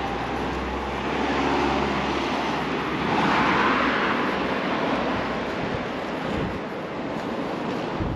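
A passing road vehicle: engine rumble and tyre noise that swell to a peak about three and a half seconds in, then fade away.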